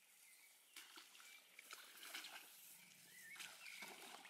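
Faint rustling and crackling of tall grass and reeds as people walk through them, with a few short, faint whistling bird calls.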